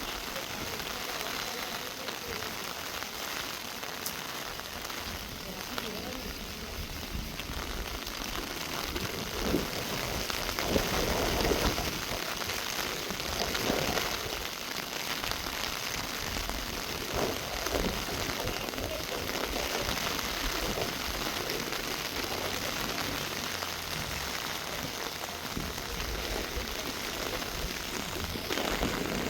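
Steady rain falling on tree foliage, an even patter with a few louder spells of heavier drips and splashes in the middle.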